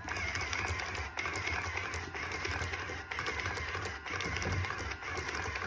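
Automatic card-dealing machine running: its small motor hums as it turns and flicks Uno cards out one after another in a rapid, steady run of clicks, with a brief lull about four seconds in.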